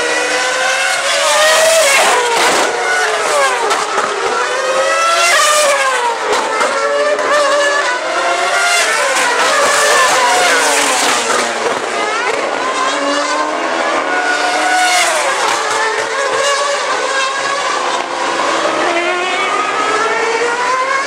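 Formula One cars' 2.4-litre V8 engines screaming past at high revs, one after another, the pitch of each rising and falling as it passes and changes gear.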